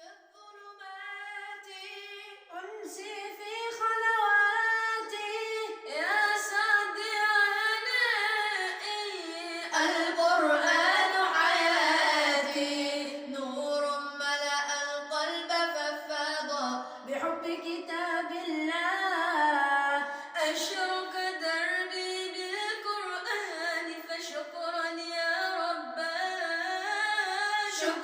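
Several voices singing a cappella in harmony, with no instruments or percussion. The singing fades in over the first few seconds.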